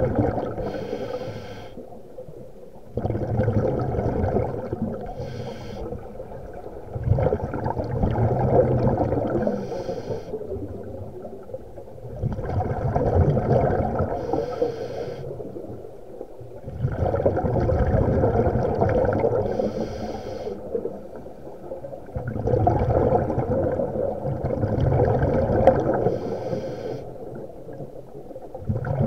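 A scuba diver breathing through a regulator, heard underwater: a slow rhythm of inhale hiss and bubbling exhaust, one breath cycle about every five seconds.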